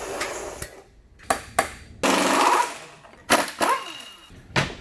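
A series of sharp metal knocks and clanks from tools and parts being worked during a transmission teardown, with a short burst of rattling noise about two seconds in.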